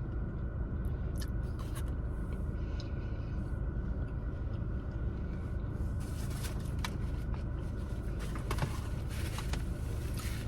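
Steady low rumble inside a car, with scattered small clicks and crackles, busiest in the second half, from eating.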